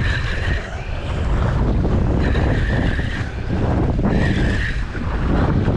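Wind buffeting the microphone on a boat at sea, a loud, rough rumble. A higher-pitched whirr comes in four short spells about two seconds apart.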